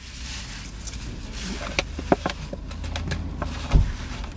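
Light handling noises of a plastic fork and its wrapper and a cardboard takeout box: a few small clicks about two seconds in, and a dull thump near the end, all over a steady low hum in the car cabin.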